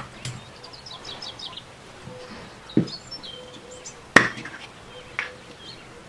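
Small birds chirping in short quick runs, with a dull knock, then two sharp clicks from small parts being handled, the first click about four seconds in the loudest.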